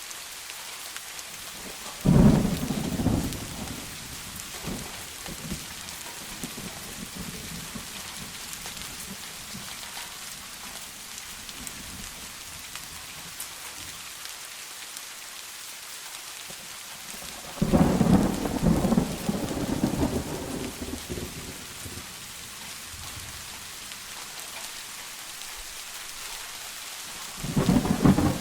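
Steady rain hissing in a forest thunderstorm, with three sudden thunderclaps that rumble on for a few seconds: one about two seconds in, a longer one past the middle, and another starting near the end.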